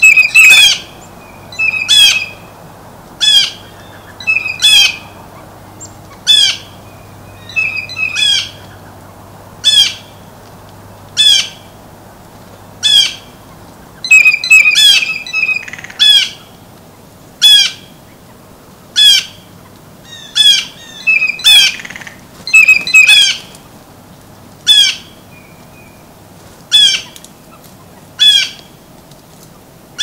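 Blue jays calling: a loud, harsh call repeated about every second and a half, with shorter notes between some of the calls.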